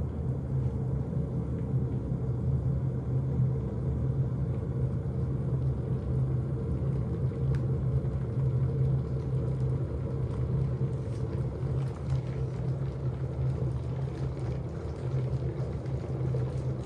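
Kitfort KT-6162 stainless-steel electric kettle heating water, a steady low rumble as the water comes up to the boil.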